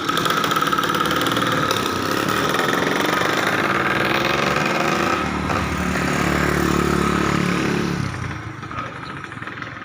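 A vehicle engine running steadily close by, dropping away about eight seconds in.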